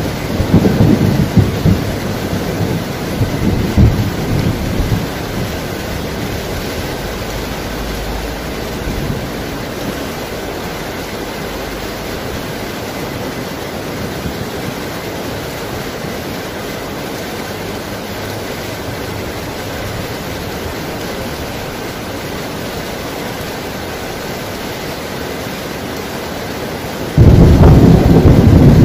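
Heavy rain with thunder. A low rumble of thunder dies away over the first few seconds and leaves the steady hiss of pouring rain. Near the end a loud thunderclap breaks in suddenly and rolls on.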